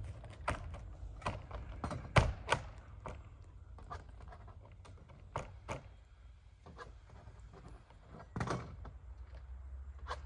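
Irregular knocks and clacks of vinyl siding being fitted and nailed to a house wall, with the loudest knock about eight and a half seconds in.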